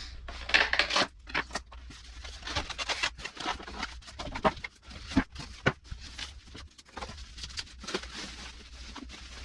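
Cardboard box and packaging being handled as a soundbar subwoofer is pulled out: irregular scraping, rustling and knocks, loudest about a second in.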